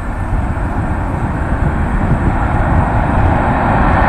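Boeing 747-400's four turbofan engines on landing approach, a steady jet rumble and hiss growing gradually louder as the airliner nears, with low wind rumble on the microphone.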